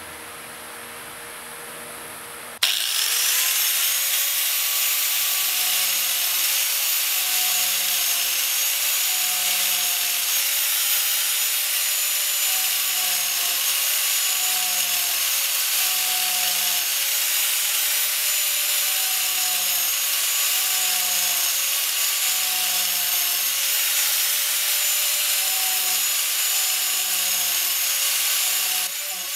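Ozito angle grinder with a Saburr-Tooth carving disk running with a steady high whine and grinding into a wooden bowl, cutting a row of notches around its rim one after another with a regular pulse every second or so. It starts abruptly about three seconds in and stops just before the end.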